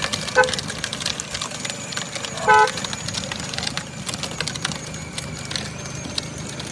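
Kids' ride-on electric car's horn giving two short beeps, a quick one near the start and a slightly longer one about two and a half seconds in, over a crackly background noise.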